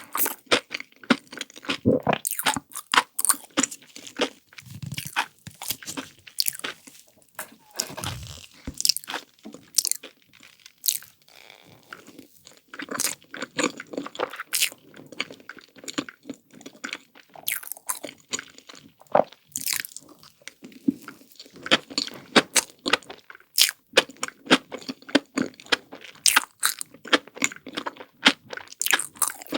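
Close-miked eating: irregular crisp crunches of chocolate-coated ice cream being bitten and chewed, with wet chewing between them. There are a couple of duller low thuds around five and eight seconds in.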